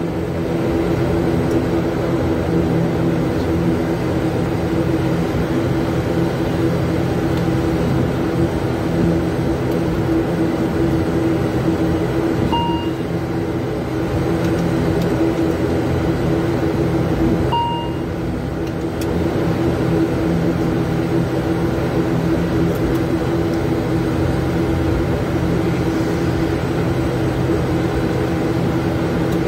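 The ATR 72-600's Pratt & Whitney PW127M turboprop engines and propellers run at low taxi power, a steady humming drone heard from inside the cockpit. Two short beeps come about five seconds apart, near the middle.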